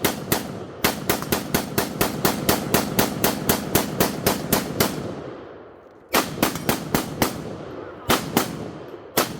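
Rapid gunfire: a fast string of about twenty shots at four to five a second. After a short pause come a few more quick volleys of shots, each shot trailing off in an echo.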